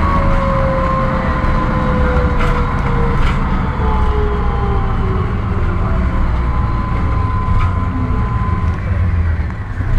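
MAN SL200 bus with a four-speed Voith automatic gearbox, heard from inside while under way: a steady low rumble with a whine that glides slowly down in pitch, settling to a steadier tone later on.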